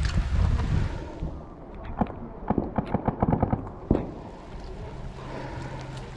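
Paintball marker firing a rapid string of shots, about ten in a second and a half, then one more shot a moment later.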